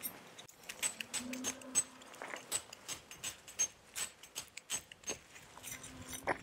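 Metal tent pegs being set into a gravel pitch: a run of irregular sharp metallic clinks and taps, some with a short bright ring, mixed with gravel scraping.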